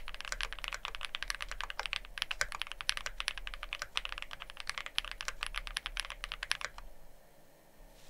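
Fast continuous typing on a Wuque Studio Freya Ultra custom mechanical keyboard with factory-lubed Cupid linear switches and GMK Tenshi keycaps: a quick, even run of keystroke clacks that stops near the end.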